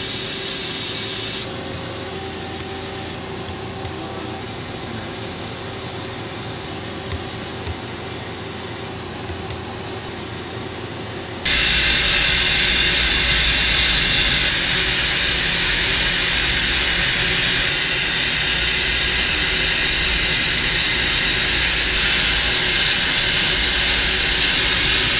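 Steady machine-shop running noise from a CNC milling machine: a hiss over a low hum with a few steady tones. About eleven seconds in it steps up to a louder, fuller rush.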